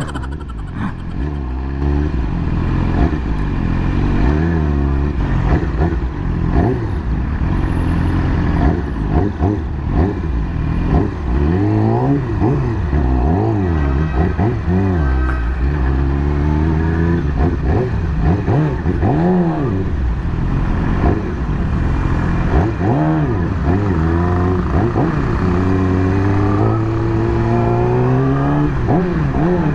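2020 Yamaha YZF-R6 inline-four engine under way, its pitch climbing and dropping back again and again as the rider opens the throttle and changes gear.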